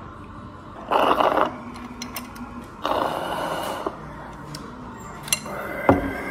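Loud slurping of an icy strawberry drink, first through a straw, then straight from the tipped-up glass, with a few small clicks of ice. A single low thump near the end.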